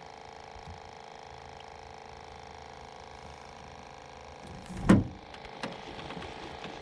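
Fishing reel and rod handling while a catfish is brought in: a steady hum, a loud thump about five seconds in, then a few scattered clicks.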